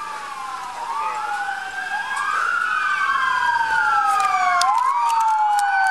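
Police sirens wailing, at least two overlapping, each falling slowly in pitch and then sweeping quickly back up. They grow louder over the first two seconds: cover units responding code 3 with sirens on.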